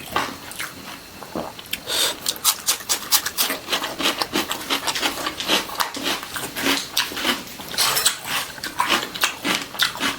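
Close-up mouth sounds of a person eating chicken: a dense, irregular run of wet chewing clicks and lip smacks.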